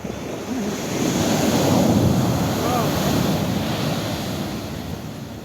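Sea surf surging and breaking on the beach: one wave rushes in, swells to its loudest about two seconds in, then washes out and fades. Wind buffets the microphone throughout.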